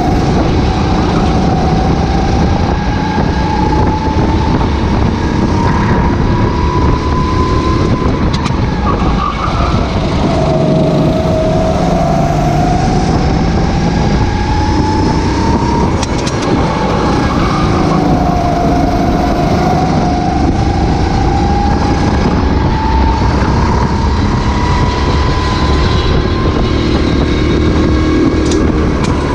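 Racing kart engine heard onboard at race pace, its pitch climbing steadily as it accelerates and dropping as it slows for corners, several times over, with a constant rush of wind and rolling noise.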